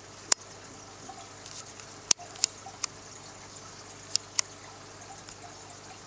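Aquarium water trickling steadily, with sharp clicks now and then, the loudest about a third of a second in and just after two seconds.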